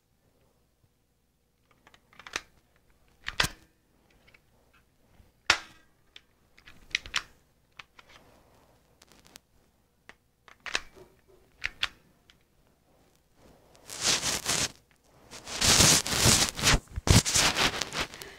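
A toy pistol clicking sharply about seven times at irregular intervals, a second or more apart. Near the end, louder rustling of bedding and fabric as the person moves.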